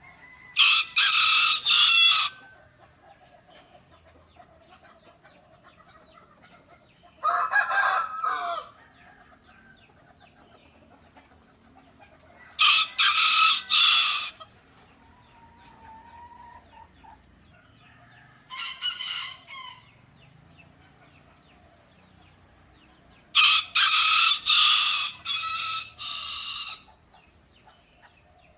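Roosters crowing: five separate crows, each one to three seconds long and several seconds apart, the fourth fainter and the last the longest.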